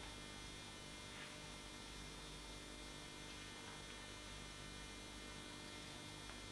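Steady electrical mains hum, with a couple of faint taps.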